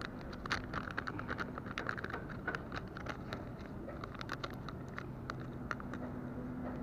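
Crinkly plastic lure packet being torn open and handled, with a clear plastic tray of soft plastic worms pulled out: rapid dense crackling for the first three or four seconds, then thinning to occasional crinkles.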